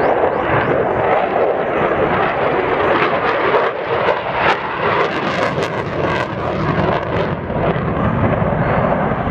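F-16 fighter jet's engine running in afterburner as the jet turns away: a loud, continuous jet noise with sharp crackling through the middle, the deep rumble growing stronger later on.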